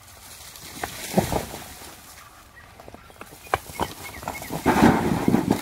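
Loose rocks being pulled and shifted on a heap of rubble stones and earth: a few sharp knocks of stone on stone, then a louder, longer stretch of scraping and clattering near the end.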